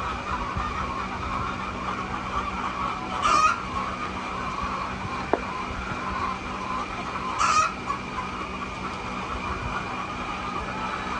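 Flock of laying hens: a steady background din of clucking, with two brief louder squawks, one about three seconds in and one past seven seconds, and a single small click between them.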